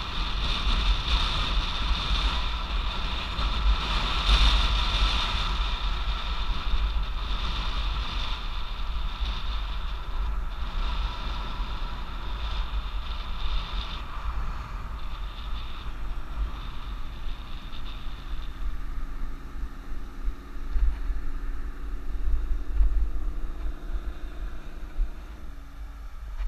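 Wind buffeting the microphone and tyre noise from an e-bike riding along a paved road, with a steady low rumble. The noise eases somewhat in the last few seconds.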